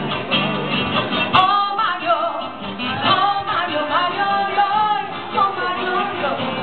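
Live Transylvanian folk band: a woman singing with wavering, ornamented notes over rhythmically strummed acoustic guitars and accordions. A brief sharp click sounds about a second and a half in.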